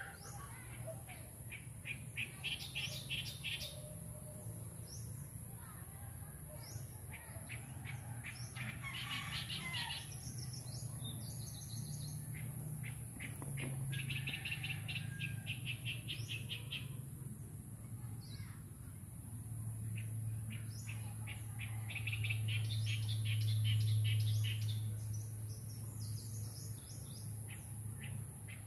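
Small birds chirping in repeated quick runs of notes, over a steady high-pitched hiss. A low hum underneath swells about three-quarters of the way through.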